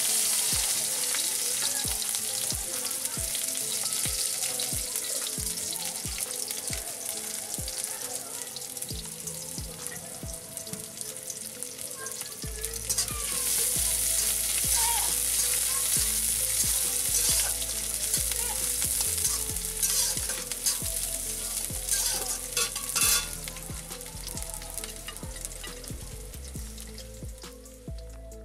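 Sliced onions sizzling in hot oil in a metal wok (kadai), with a flat metal spatula stirring and scraping against the pan in short repeated strokes.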